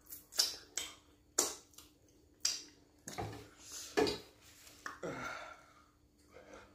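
Close-up eating sounds of pounded yam and pepper soup eaten with the fingers: a run of sharp, wet lip smacks and finger-sucking clicks, about seven in the first four seconds, then a longer breathy sound about five seconds in.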